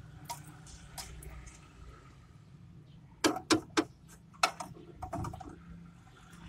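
Sharp plastic clicks and taps, two near the start and a quick cluster of four or five about halfway through, from SC fiber-optic connectors being handled and plugged into a visual fault locator pen to laser-test splitter outputs.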